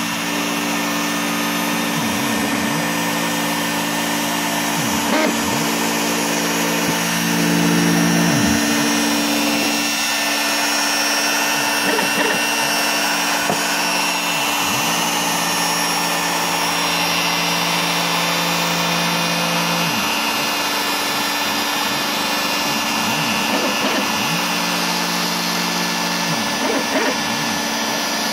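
Bosch Colt trim router running steadily with a 1/32-inch single-flute bit as an OX CNC cuts foam board, over the steady sound of a shop vacuum. The stepper motors' whine dips and climbs again every few seconds as the gantry slows and turns at corners.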